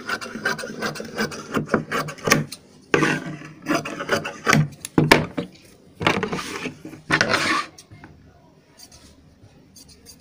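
Large tailoring scissors cutting through fabric along a chalk line: a run of snips in spurts that stops about three-quarters of the way through.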